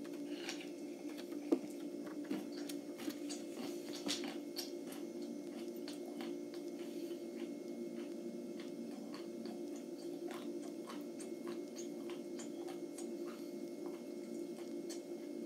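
A person chewing a mouthful of peanuts, with many small crunches, loudest in the first few seconds, over a steady low hum.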